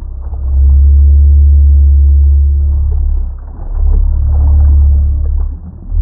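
Heavy low rumble buffeting the microphone, swelling twice and easing off in between.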